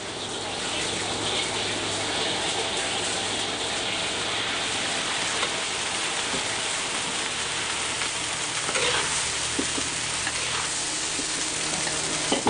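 Green beans stir-frying in a wok: a steady sizzling hiss, with a few sharp clicks about nine seconds in and near the end.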